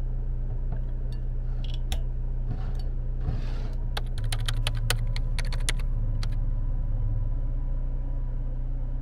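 Clicks and light knocks of a glass swing-top bottle being capped and handled on a counter, with a quick run of clicks about four to six seconds in, over a steady low hum.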